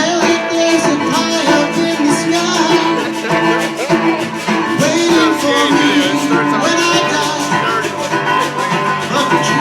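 Live acoustic guitar strummed in a steady rhythm, with a voice singing over it.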